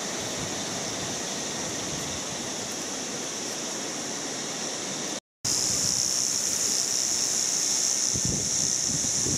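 Steady, high-pitched, even drone of a cicada chorus in coastal bush, with some wind on the microphone. The sound cuts out for a moment about five seconds in and comes back louder.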